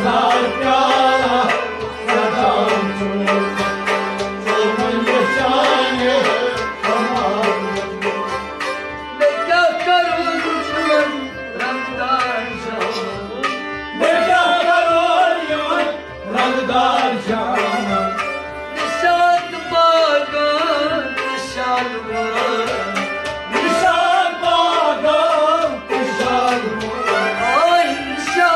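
Live devotional Sufi kalam: a male voice singing over harmonium, plucked rabab and tabla-style hand drums.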